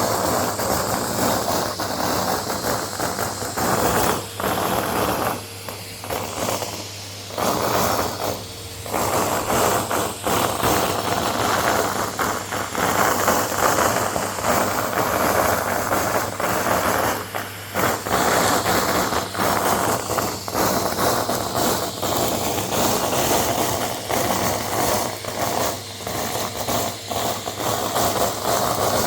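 Vacuum cleaner running steadily while sucking up shredded brown paper, the pieces rattling and crackling through the nozzle and hose. The rattling thins out briefly twice in the first ten seconds, leaving the motor's hum.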